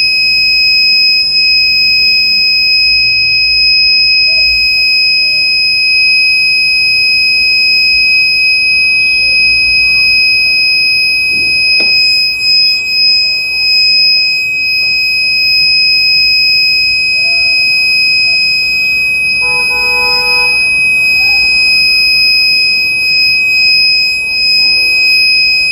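Buzzer of an MK-060 smoke detector kit sounding one steady, unbroken high-pitched tone. This is the alarm's audio indication that smoke has been detected by its slot-type infrared opto isolator.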